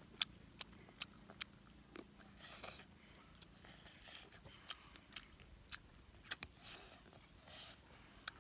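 Person eating roasted duck: close chewing and biting, with scattered sharp clicks and smacks of the mouth and a few short soft rasps.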